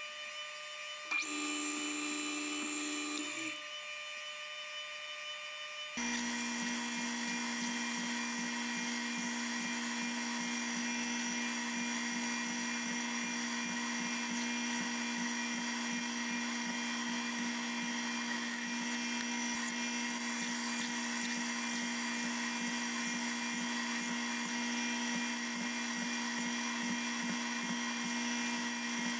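Bridgeport milling machine running, its spindle driving a twist drill into bar stock: a steady machine whine with several fixed tones. It steps up suddenly about six seconds in and stays louder from there.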